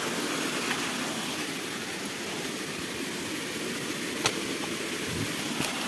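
Steady rushing outdoor noise in forest undergrowth, with a single sharp tick about four seconds in and a fainter one near the end.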